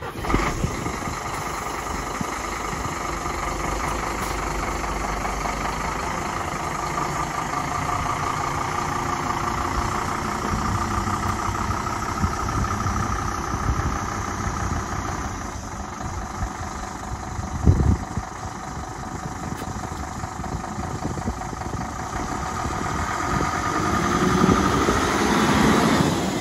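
Scania P-series box truck's diesel engine running at low speed as the truck is driven slowly around. There is a short thump about eighteen seconds in, and the engine grows louder near the end as the truck comes past close by.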